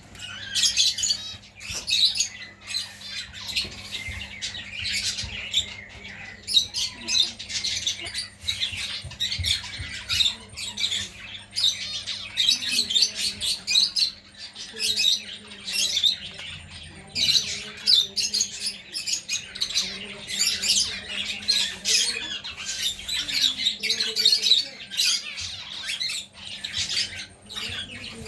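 Many small birds chirping and squawking in a busy, unbroken chatter of short, high calls.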